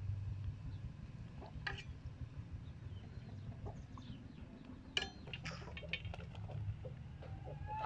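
Chickens clucking in the background over a steady low rumble, with two sharp metallic clinks, about two seconds and five seconds in, as a metal ladle knocks against an aluminium cooking pot.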